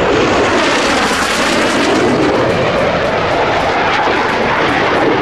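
Steady rushing jet noise from a Blue Angels twin-engine F/A-18 flying overhead.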